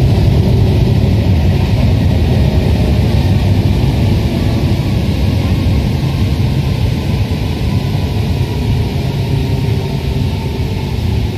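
A Paris Métro Line 1 rubber-tyred train running at speed through a tunnel, heard from inside at the front: a loud, steady rumble of tyres and running gear that eases slightly toward the end.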